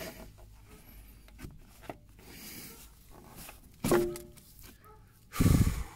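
Hand and rag handling noises as an oily engine oil filter is worked out of a tight space under a mini excavator: rubbing, rustling and small knocks, with a short strained sound about four seconds in and a louder low rush of noise lasting about half a second near the end.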